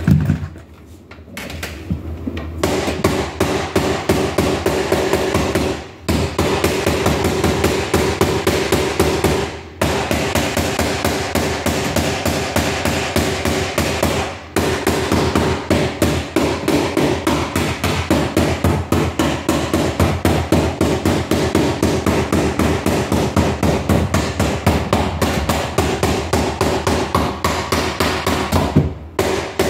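A hammer tapping a door sweep down along the bottom of a door: quick, steady strokes, about three or four a second, with a few brief pauses.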